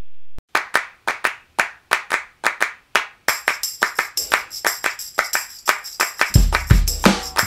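Background music with a steady beat: a rhythm of handclaps, about three a second, starts half a second in. A shimmering high percussion layer joins after about three seconds, and a deep bass beat comes in near the end.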